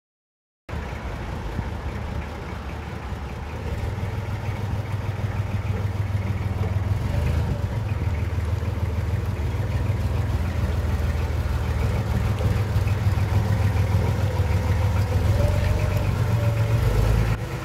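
Forklift truck engine running steadily as it drives across a yard, starting abruptly about a second in and growing louder as it comes nearer.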